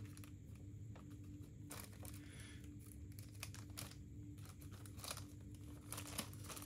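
Faint, sparse rustling of packaging and light handling clicks over a steady low hum, a little busier near the end.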